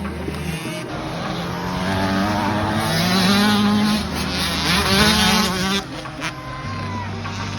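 Several dirt bike engines revving hard together as riders pull away from a race start, their pitch rising and falling. Loudest about three to five seconds in, easing off after about six seconds.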